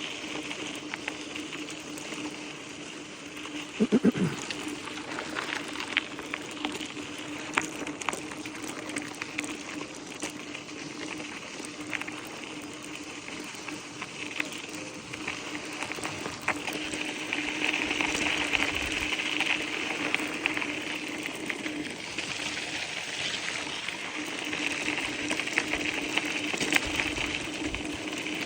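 Bicycle rolling along a trail: the tyres tick and crackle over the ground above a steady hum, with a brief loud wavering tone about four seconds in.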